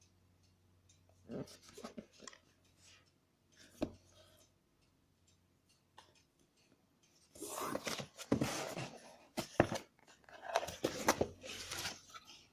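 Packaging of a TV box being handled and opened by hand: a few light knocks and clicks, then from about seven seconds in two longer stretches of rustling handling noise.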